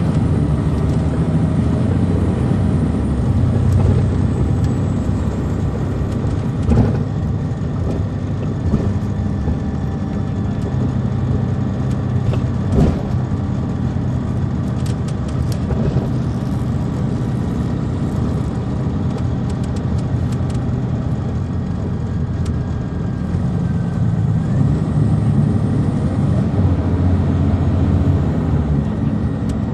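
Detroit Diesel Series 60 diesel engine of a 2002 MCI D4000 coach running under way, heard from inside the bus, its note shifting as it drives. A sharp knock comes about seven seconds in and another about thirteen seconds in.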